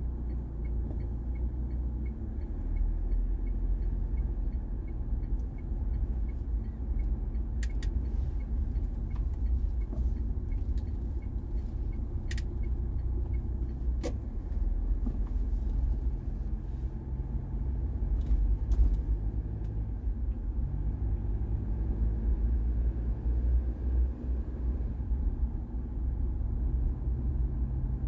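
Steady low road rumble of a car driving, with a few brief sharp clicks about a third and two thirds of the way through.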